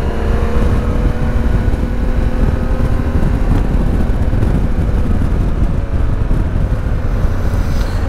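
Yamaha Ténéré 700 adventure motorcycle cruising on an open road at about 60 km/h: heavy wind buffeting on the helmet-mounted microphone over the engine's even drone, its pitch rising slightly as the bike picks up speed.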